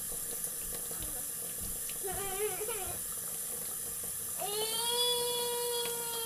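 Tap water running into a kitchen sink. A baby makes a short wavering vocal sound about two seconds in, then a long, steady, high-pitched 'aah' from about four and a half seconds.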